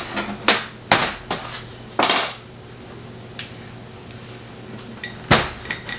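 Cucumbers being pushed and crammed into a glass jar, with knocks and clinks against the glass. There are a few in the first two seconds, then a quieter stretch, then another knock about five seconds in.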